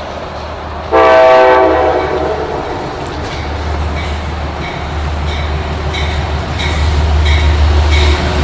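A train horn blows one loud chord-like blast about a second in. The low rumble of the approaching train then builds, with its wheels clicking over rail joints at an even beat of roughly one and a half clicks a second.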